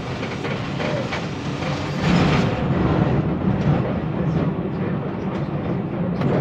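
Vintage tram TW 206 running on its rails, heard from inside the driver's cab: a steady rumble of wheels on track with scattered clicks over the rail joints. It grows louder about two seconds in.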